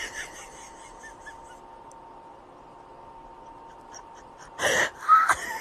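Kitten making a few faint, short squeaky mews, then a brief noisy burst and a louder short mew near the end.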